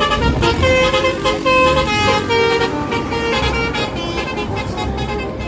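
Bus telolet horn playing a quick run of short melodic notes over a low engine rumble.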